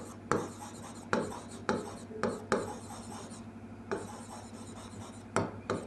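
Marker pen on a whiteboard: a string of short, separate strokes and taps, about nine in all, as dots and lines are drawn on the board.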